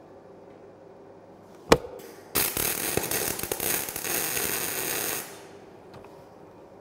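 A single sharp knock, then the arc of a gas-shielded wire-feed (MIG/MAG) welder crackling and sizzling steadily for about three seconds as a steel cross-brace is welded to a frame leg, cutting off abruptly.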